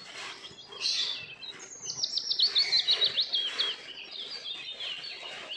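Small birds chirping, with a fast run of high, down-sweeping notes in the middle.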